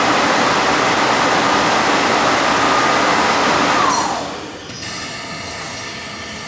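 A 209-series train's screw air compressor running with a steady rushing noise and a whine. About four seconds in it shuts off: the whine slides down in pitch, and the noise falls away to a quieter steady hum.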